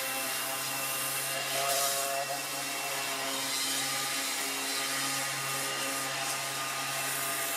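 Cordless handheld sander running steadily against a 3/16-inch metal toe plate: an even motor hum under the hiss of the pad on the metal.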